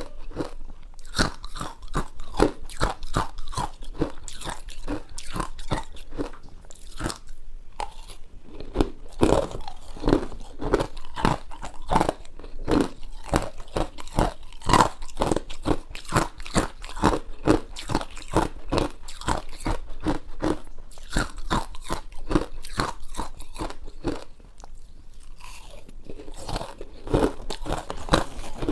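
Ice being bitten and chewed: a steady run of loud, crisp crunches, several a second, easing off briefly about three-quarters of the way through before resuming.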